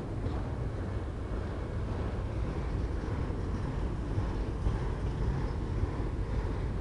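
BNSF autorack freight cars rolling past close by: a steady low rumble of the train in motion.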